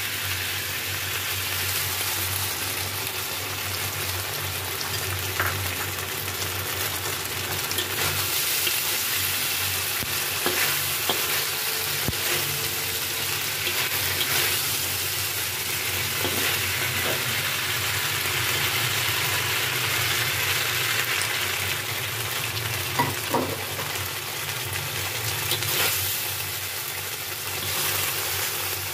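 Bell peppers and fish pieces sizzling in a hot wok while a spatula stirs them, with a few short clacks of the spatula against the pan. A steady low hum runs underneath.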